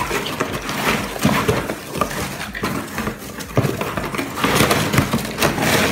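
Shredded-paper packing fill rustling and crinkling as hands dig through it and pull handfuls out of a cardboard box, an irregular crackling rustle with several sharper crinkles.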